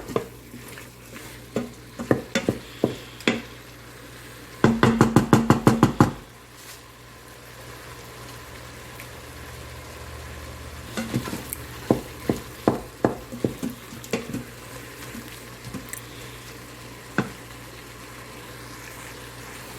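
Meat sizzling as it cooks in an Instant Pot, stirred with a utensil that knocks and scrapes against the metal pot. About five seconds in comes a quick run of about ten loud clattering knocks, and a few more scattered knocks follow later.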